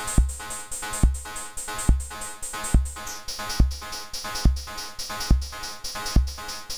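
Modular-synth drum pattern from a DIY XORbell metallic percussion module, which mixes square-wave oscillators through an XOR gate: a deep kick a little more than once a second, with rapid metallic hi-hat-like ticks between. About three seconds in, the high metallic tone drops in pitch.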